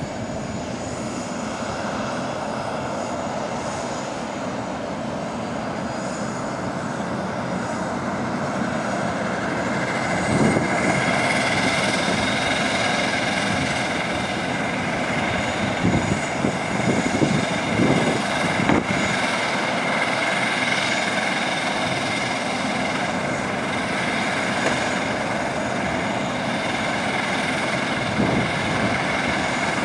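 Bombardier Dash 8 Q400 turboprop airliner taxiing, its engines and six-bladed propellers running with a steady drone and a high whine. The sound grows louder about a third of the way in.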